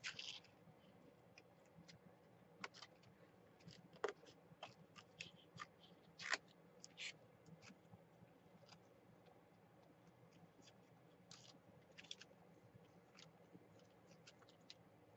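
Faint scissor snips and thin paper rustling as paper cutouts are handled: scattered soft clicks and crinkles, busiest in the first seven seconds and sparse after that.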